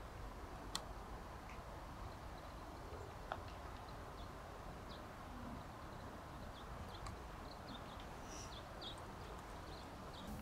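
A golf putter striking the ball once, a single sharp click about a second in, then a fainter tick a few seconds later. Faint short bird chirps over a quiet, steady background.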